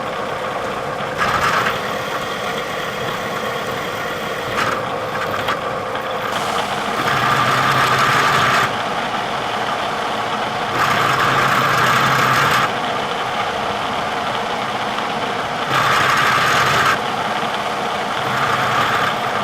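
Bridgeport milling machine running and cutting metal. The cutting noise grows louder several times, in stretches of one to two seconds, as the cutter bites into the workpiece.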